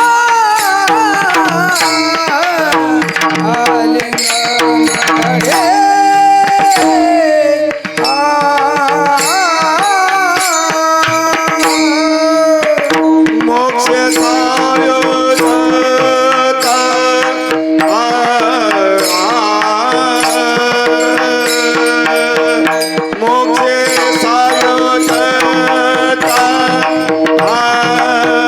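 Marathi Varkari abhang tune (kirtan chal): a man singing the melody over a held drone note, with hand-drum accompaniment keeping a steady rhythm.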